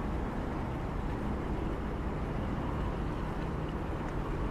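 Tall ship's diesel engine running under way, a steady low rumble.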